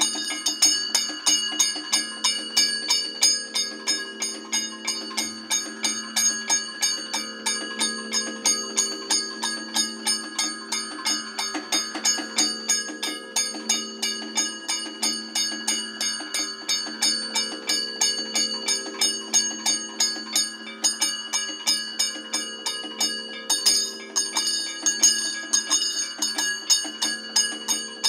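Kathakali percussion: metal gong and small cymbals struck in a steady rhythm of about three strokes a second, their ringing tones held between the strokes.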